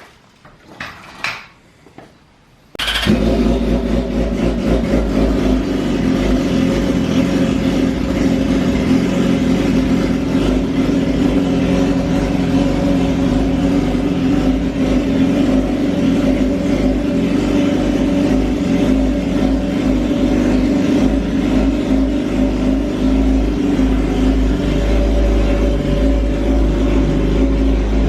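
The 2008 Yamaha R6's inline-four engine starts up about three seconds in after a few light clicks, then idles steadily. This is the first start after the oil change, run to check for leaks.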